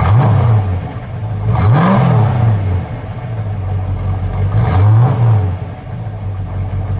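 1971 Plymouth Road Runner's stock 340 V8, heard at its dual exhaust tips, revved three times from idle. Each rev rises quickly and falls back to a steady idle, and the second rev, about two seconds in, goes highest.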